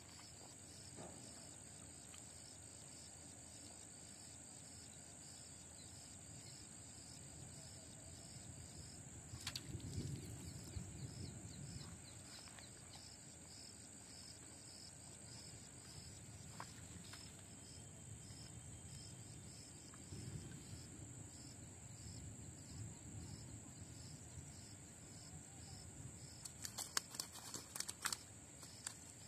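Insects chirring in a steady high drone, with a fainter pulsing chirp beneath it. Wind buffets the microphone now and then, and a few sharp clicks come near the end.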